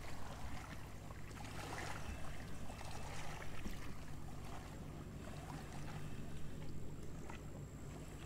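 A boat motor droning steadily on the river, a low even hum over a wash of background noise.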